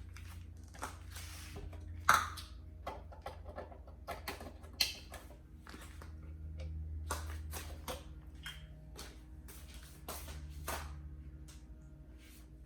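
Scattered light clicks and knocks of cookware and utensils being handled at the stove, the sharpest about two seconds in, over a low steady hum.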